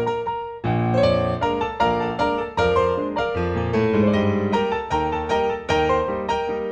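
Background music: a piano piece with a steady, bouncy beat of quick notes.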